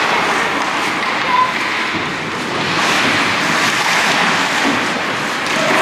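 Ice hockey rink ambience during play: a steady, fairly loud hiss of noise with no distinct events.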